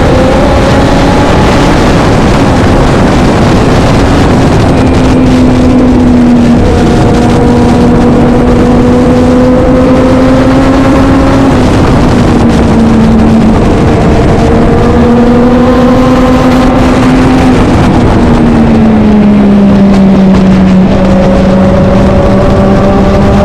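Racing motorcycle engine running hard at high revs, over loud wind rush, its pitch holding steady and then stepping up or dropping every few seconds as the rider changes gear and speed.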